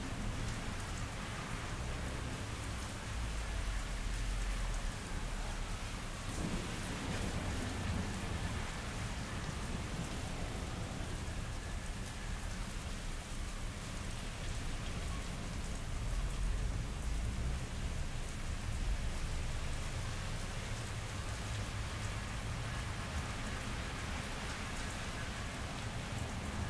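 Steady summer rain falling on pavement, with low rolls of thunder, one a few seconds in and another past the middle.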